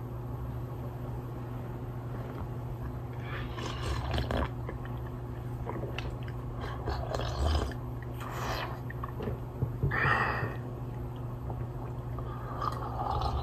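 Several short slurping sips from a mug, a few seconds apart, over a steady low hum.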